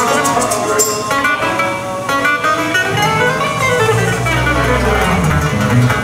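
Live band music led by a guitar playing quick picked notes, with deep bass notes coming in about halfway through.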